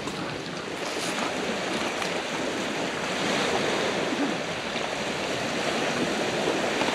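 Small waves washing steadily onto a stony loch shore, mixed with wind.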